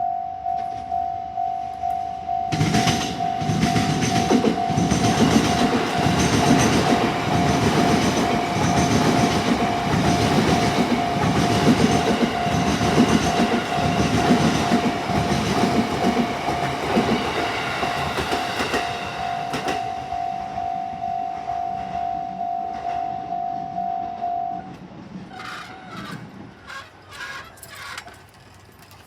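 Japanese level-crossing warning bell ringing about twice a second while a train passes over the crossing, starting about two and a half seconds in and fading after about seventeen seconds. The bell stops a few seconds after the train has gone.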